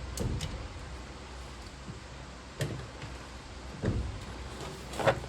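A few scattered knocks and clunks as the brake pedal assembly, stuck to the brake booster, is worked loose.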